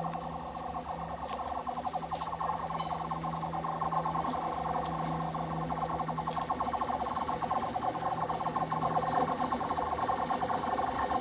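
Distant Class 37 diesel-electric locomotives approaching. Their English Electric V12 engines make a steady droning hum that grows gradually louder.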